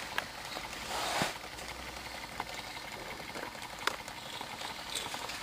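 Small homemade oscillating Stirling engine running: a soft, even hiss with a few light clicks here and there and a brief louder rush about a second in.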